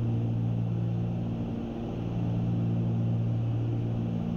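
Cessna 310Q twin-engine airplane in cruise flight: the steady, low drone of both piston engines and propellers heard inside the cabin.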